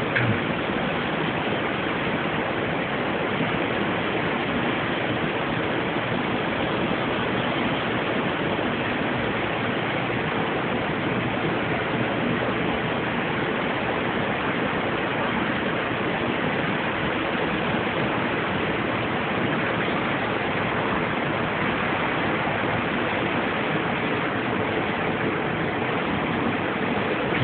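Steady, even rushing of heavy rain and wind in a severe thunderstorm.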